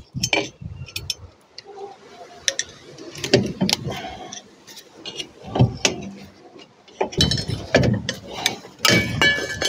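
Rear brake drum being taken off a car's hub: a screwdriver turns the drum's retaining screw, then the drum is worked loose by hand. Irregular metal-on-metal clicks, knocks and scrapes, with a short metallic ringing near the end.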